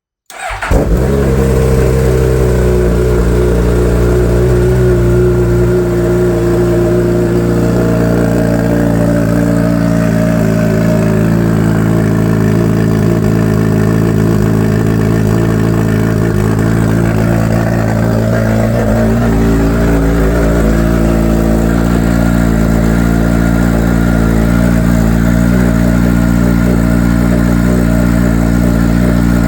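Suzuki GSX-S1000's inline-four engine starting up through a freshly fitted Black Widow full exhaust system, catching a fraction of a second in, then idling steadily.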